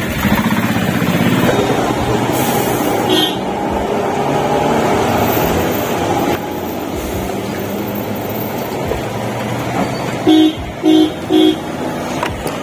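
Busy road traffic with vehicle engines running, then three short horn honks in quick succession about ten seconds in.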